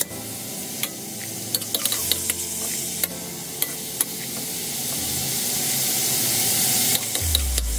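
Beef shank sizzling in oil with garlic in a stainless steel wok, while a metal ladle scrapes and clinks against the pan several times as the meat is turned.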